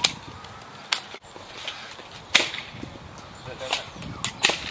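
Exploderz gel-ball blaster being cocked and fired: a series of about six sharp snaps, the loudest one about two and a half seconds in and a quick cluster near the end.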